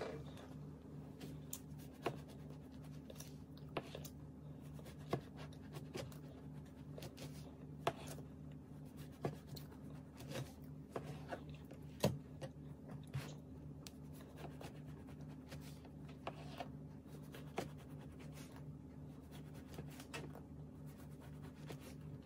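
Knife sawing through a crusty French bread loaf, with scattered crackly crunches of the crust and taps of the blade on a plastic cutting board, over a steady low hum.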